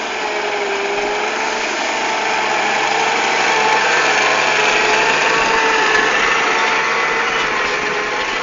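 Case IH CVX 160 tractor engine running steadily while ploughing, growing a little louder toward the middle and easing off near the end.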